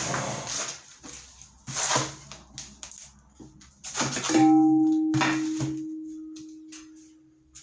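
A reciprocating saw stops at the very start, followed by a few light knocks of metal being handled. About four seconds in comes a sharp clang of metal that rings on in one steady tone, slowly fading over some three seconds.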